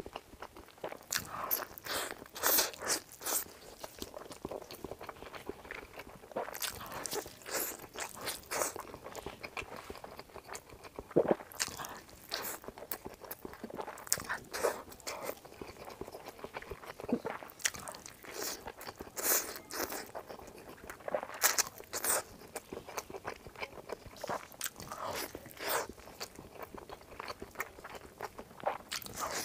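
Close-miked biting and chewing of an egg-yolk and pork-belly zongzi (glutinous rice dumpling): mouth noises in short, irregular bursts, with pauses between bites.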